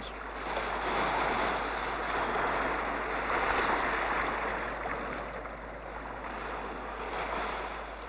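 Open-sea waves washing, a steady rushing of choppy water that swells over the first few seconds and then slowly eases.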